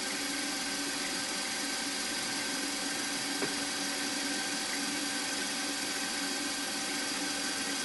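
Milling machine spindle running steadily while a small twist drill bores an M3 tapping-size hole in a metal block: an even motor hum with a few constant tones.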